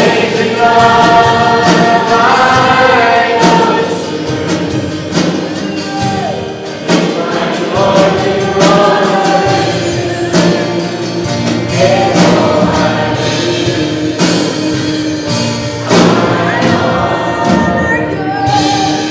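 Group singing of a gospel worship song with a band accompaniment and a steady beat.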